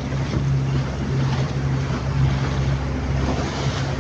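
Boat engine running steadily with a constant low hum, under the rush of wind and water.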